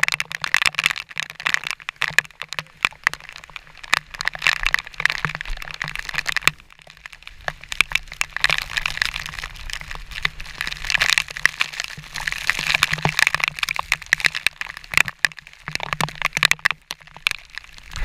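Dense, irregular crackling and clicking right on the camera as it is carried through rain and waterfall spray, coming and going, with a short lull about six and a half seconds in.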